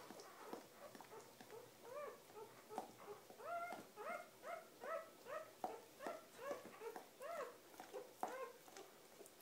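Newborn puppy crying in short, high, rising-and-falling squeaks, about two a second, starting about two seconds in. Under them are the soft clicks of the mother dog licking the pup.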